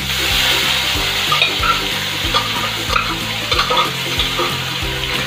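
Boiled cabbage tipped into a hot kadai of frying potatoes and spices, sizzling in the oil as it lands, with a spoon scraping and tapping against the metal pan as the cabbage is pushed out.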